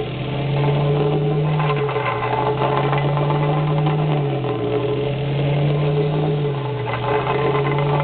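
Vibratory plate compactor's small petrol engine running hard as it tamps a fresh asphalt patch, with a loud rattle. Its pitch sags and recovers about every two seconds.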